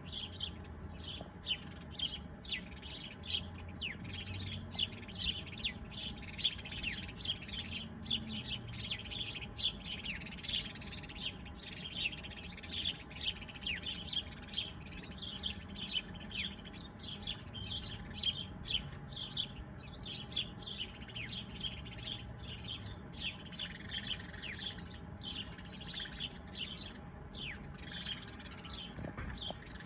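Small birds chirping continuously, many short, quick downward-sweeping chirps overlapping one another.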